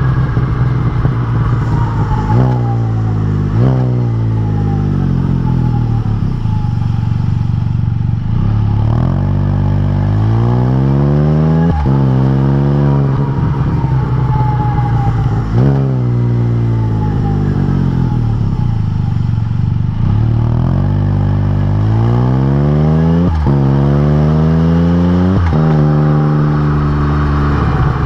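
A Can-Am Spyder RT's three-cylinder engine sounding through RLS Crusher aftermarket mufflers while on the road. It accelerates with rising pitch and upshifts, the pitch dropping sharply at each shift, and slows with a falling pitch between pulls.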